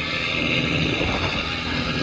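A trawl fishing boat's engine running steadily, a continuous low hum with a hiss over it.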